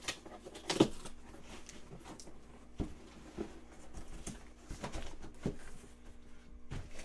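Cardboard shipping box being handled and tipped onto its side: a series of knocks and scuffs of cardboard against the table, the loudest about a second in.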